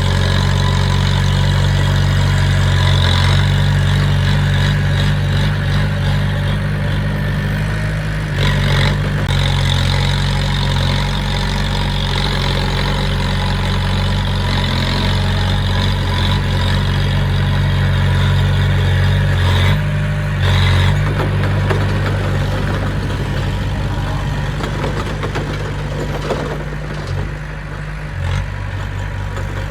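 Diesel engine of heavy earthmoving machinery running steadily, with a few short knocks about 8 to 9 seconds in and again around 20 seconds.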